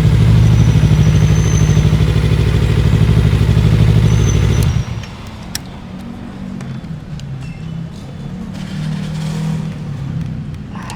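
Motorcycle engine running at a steady, pulsing idle, then cut off abruptly about five seconds in. After it stops, a quieter low hum and a few light clicks remain.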